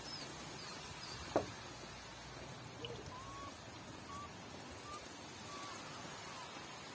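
A newborn puppy gives one short, sharp squeak about a second and a half in. Faint, short bird chirps in the background.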